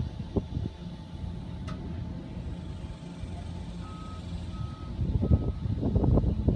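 Trailer running gear 'singing': loud, irregular groaning noises from about five seconds in, over a steady low rumble. A reversing beeper sounds about three times every two seconds from about four seconds in.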